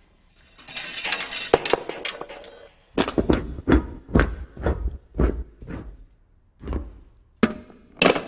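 Metal car parts clattering and knocking on a bare wooden floor as they set each other off in a chain reaction. First comes a dense rattle lasting about two seconds, then a run of sharp knocks, roughly two a second, as a cylindrical part rolls and tumbles across the floorboards. The loudest knock comes near the end.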